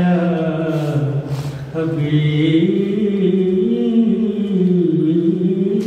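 A man's unaccompanied voice chanting a naat, holding long drawn-out notes that slowly rise and fall in pitch, with a short break about one and a half seconds in.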